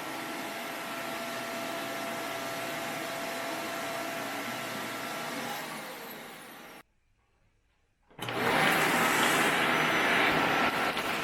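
Bissell Zing 2 bagless canister vacuum running with a steady rushing whine. About seven seconds in the sound cuts out for about a second, then comes back louder.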